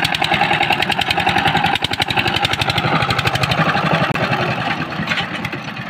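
Diesel engine of a two-wheel power tiller running under load, a steady rapid chugging as the tiller drives through the muddy field, easing off a little near the end.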